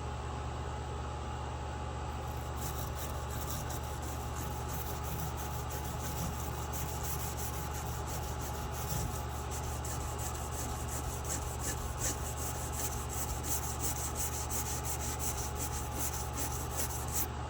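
Repeated back-and-forth strokes of an abrasive hand tool rubbing along a chainsaw guide bar's rails, dressing and smoothing the bar edges. The strokes start about two seconds in, over a steady low hum.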